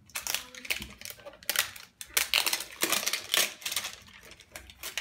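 Plastic wrapping on an LOL Surprise ball toy crinkling and crackling as it is handled and peeled off, in irregular clicks and rustles, busiest in the middle and thinning out near the end.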